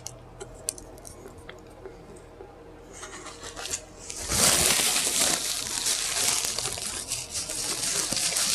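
A few faint wet mouth clicks of eating, then, about four seconds in, loud, continuous crinkling of fast-food paper packaging being handled.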